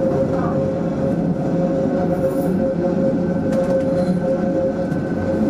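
Matterhorn Gotthard Bahn electric train rolling slowly through station tracks, heard from inside the driver's cab: a steady running rumble with a held tone over it. A couple of sharp clicks come from the wheels over the points about three and a half seconds in.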